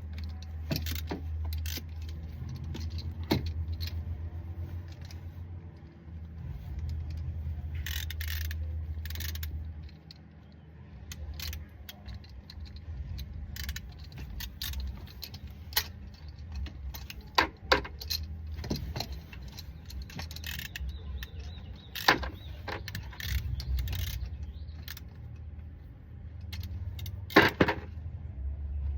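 Metal tools and parts clinking and knocking now and then while the oil filter is being fitted under the car, over a steady low rumble.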